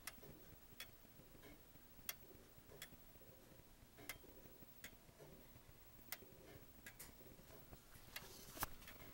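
Brown street clock movement's pendulum escapement ticking faintly, the ticks alternating short and long gaps in an uneven tick-tock, about a dozen strokes with the loudest near the end. The movement is set up for show and is not adjusted properly for timekeeping.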